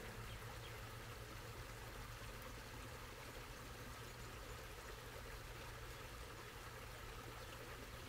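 A small, shallow stream flowing and trickling over rocks, a faint steady water sound.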